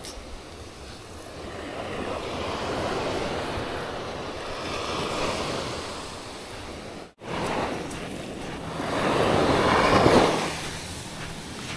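Waves washing in at the water's edge, swelling and fading every few seconds, with wind on the microphone. The sound cuts out briefly about seven seconds in.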